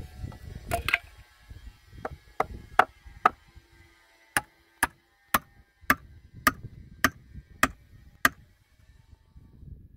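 A hammer striking about a dozen sharp, ringing blows, roughly one every half second with a short pause partway, while a wooden plank is being fixed level against a block wall. It is preceded by a short scuffle of handling.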